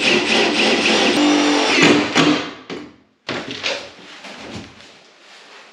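Cordless drill running under load, driving screws through a metal leg rail into the underside of a bath, for about two and a half seconds. After a brief gap it gives way to quieter knocks and handling of the bath and its fittings.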